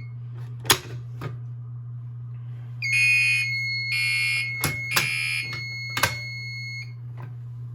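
A pull station is pulled with a sharp click about a second in. About two seconds later the tabletop fire alarm system goes into alarm: a Gentex Commander 3 horn sounds three pulses about one a second over a steady high tone, then cuts off about a second before the end. A low steady hum runs underneath.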